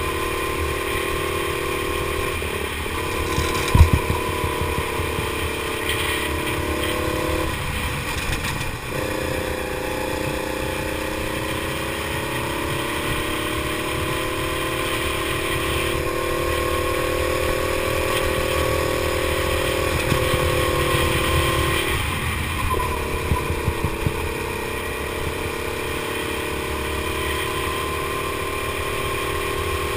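Go-kart engine running hard at speed, heard from onboard the kart. Its pitch dips briefly three times: a few seconds in, around eight seconds in, and past twenty seconds. A sharp knock comes about four seconds in, with a few light rattles a little past twenty seconds.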